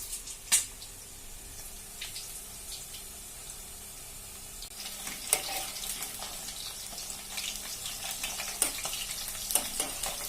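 Marinated chicken pieces frying in hot oil in a kadai: a steady sizzle with scattered crackles and pops, one sharp crack about half a second in, and the crackling growing busier from about halfway.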